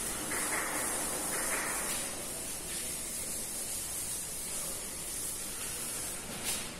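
Duster wiping a chalkboard: a scrubbing, rubbing hiss, strongest in the first couple of seconds, over a steady background hiss.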